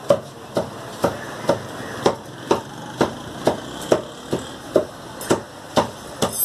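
Meat cleaver chopping beef on a wooden log chopping block, striking steadily about twice a second.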